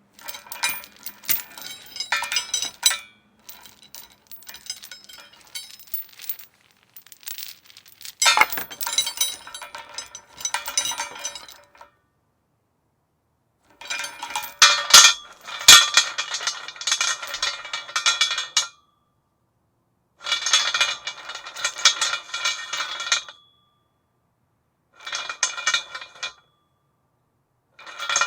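Metal chain rattling and clinking against a metal post in about seven bursts of a few seconds each, with brief silences between; the second burst is fainter.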